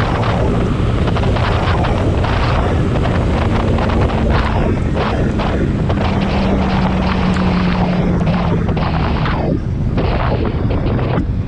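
Yamaha R15 v3's single-cylinder engine running loud on its stock exhaust. A low tone climbs slightly in pitch through the middle and eases off about three quarters of the way in.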